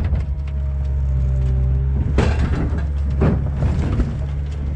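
A heavy machine's engine runs steadily while the rusted 2003 Dodge 2500 pickup is tipped off its side and crashes down onto its wheels in the snow. It lands with two loud metal-and-snow impacts, about two and three seconds in.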